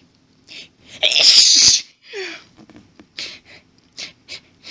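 A woman sneezes hard once, about a second in. A brief falling vocal sound follows, then a string of short, sharp, hitching breaths as the next sneeze builds.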